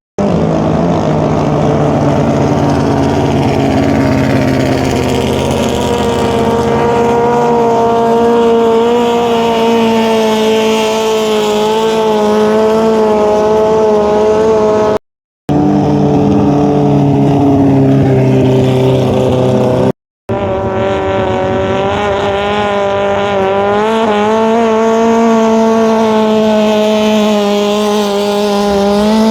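Longtail racing boat engine running at high, nearly steady revs, its pitch wavering slightly. The sound cuts out completely twice, for a fraction of a second each time, about halfway and two-thirds of the way through.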